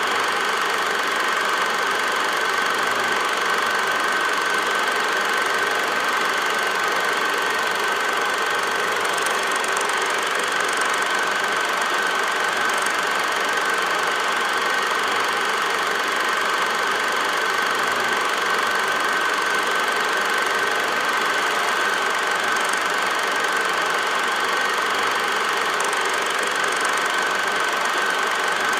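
8mm film projector running: a steady mechanical whir and clatter with a constant high whine.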